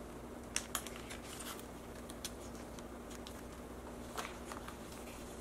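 Faint crinkles and scattered ticks of clear plastic binder pocket pages as photocards are slid into the sleeves and the page is pressed flat. One of the sharper ticks comes about four seconds in.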